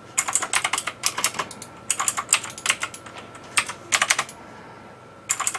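Computer keyboard being typed on in several quick bursts of keystrokes with short pauses between them, the last burst starting near the end.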